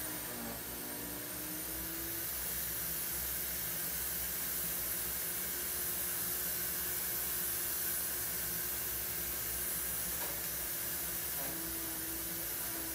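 Steady background hiss of room noise, with a faint low hum that fades out about two seconds in and comes back near the end.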